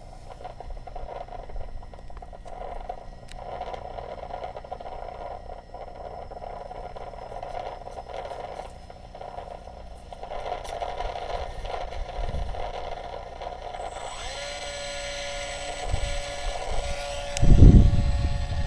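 Easystar II model plane's electric motor and propeller whining steadily. About fourteen seconds in the whine settles into a clear steady pitch that rises a little near the end, with a loud low buffeting thump shortly before that.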